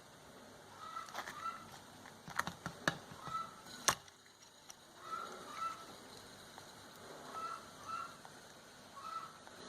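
Short bird calls repeating, often in pairs, every second or so, with a few sharp clicks or taps a little over a second in and again from about two to four seconds in.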